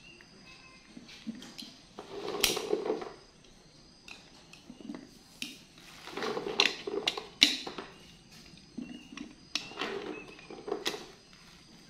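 Handling noises: irregular clatters, knocks and rustles as fruit, a glass jar and plastic bags are handled, coming in three bunches about two, seven and ten seconds in.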